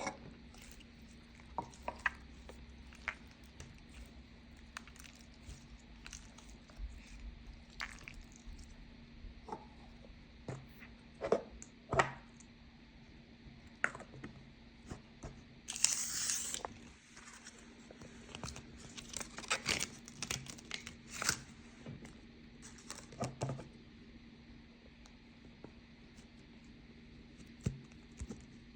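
Slime being handled: scattered sticky crackles and pops, with a longer crinkling rush about sixteen seconds in and a quick flurry of pops a few seconds later, over a faint steady hum.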